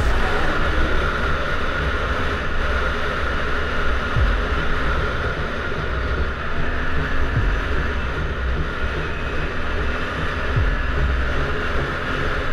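Quad bike (ATV) engine running steadily under way, heard from the rider's helmet camera, with three short drops in pitch.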